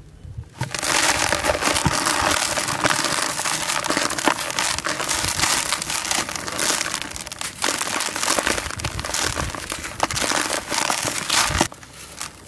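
Hands crushing a dry block of sand-cement (sandment), a gritty crunching and crackling as it crumbles and the grains fall into a plastic tub. It starts about half a second in and drops off shortly before the end.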